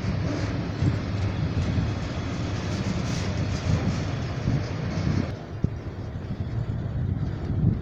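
Freight train passing: a steady, dense rolling noise heaviest in the low range, with no horn sounding. The hiss in the upper range drops off suddenly about five seconds in.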